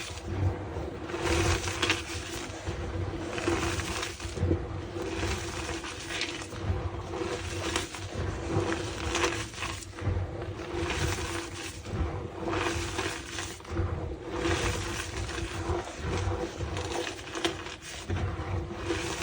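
Blocks of gym chalk being squeezed and crushed by hand, giving squeaky, crumbly crunches repeated about every one and a half to two seconds.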